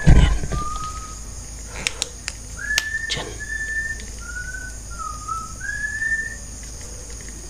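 A series of short, clear whistled notes, about six, each well under a second, some sliding upward in pitch, with a few faint clicks between them.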